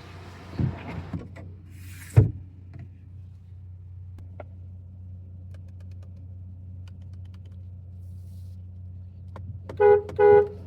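Volkswagen Virtus GT's 1.5 TSI four-cylinder engine idling with a steady low hum, heard from inside the car. A few light knocks and one sharp thump come about two seconds in, and two short beeps sound near the end.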